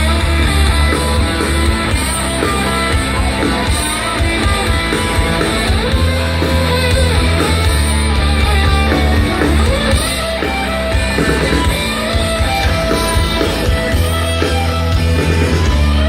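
Live rock band playing an instrumental passage with distorted electric guitars, bass and drums, recorded loud from the crowd.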